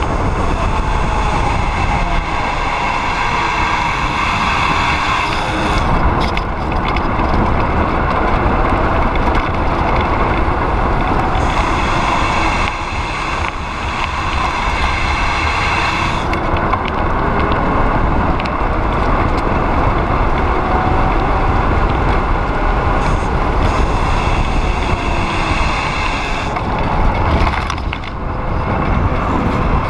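Wind rushing over the microphone of a bike-mounted camera during a fast downhill ride, with the hum of bicycle tyres rolling on asphalt. The noise swells and eases with the speed of the descent.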